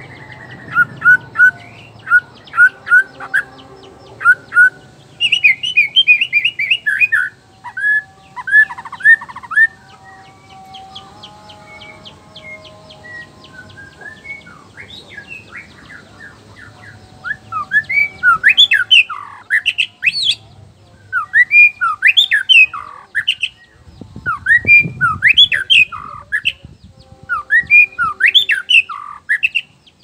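Male white-rumped shama (murai batu, black-tailed Nias form) singing loud, clear whistles. It opens with a string of evenly repeated notes and faster, higher phrases, goes quieter for several seconds, then sings bursts of rapid sweeping notes through the second half.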